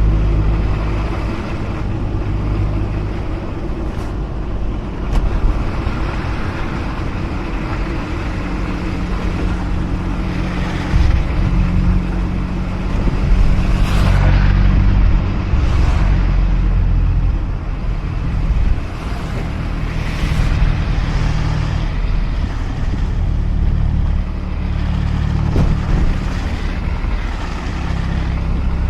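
Mazda RX-8's two-rotor Wankel engine running while driving, with steady tyre and road noise. The engine's low hum changes pitch several times as the car speeds up and slows, with a few brief swells of hiss near the middle and towards the end.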